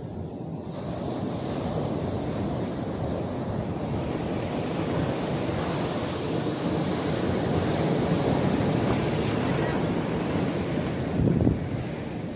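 Sea surf washing on the shore, with wind buffeting the microphone. The noise swells after the first second and has a brief louder low burst near the end.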